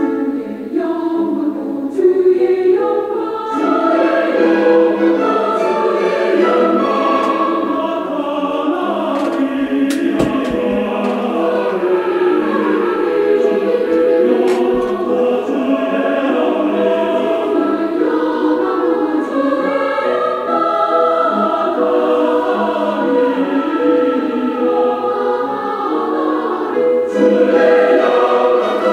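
A choir singing in sustained, many-voiced chords, with held notes shifting from one to the next.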